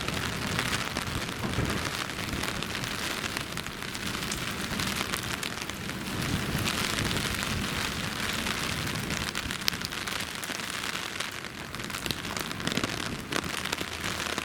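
Steady rain, with many sharp drop hits close by.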